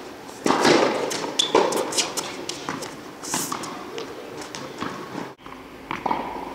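Tennis being played on an indoor court: a racket strikes the ball on the serve about half a second in, followed by more ball hits, bounces and shoe scuffs during the rally, each knock echoing in the hall. Near the end the ball is bounced on the court before the next serve.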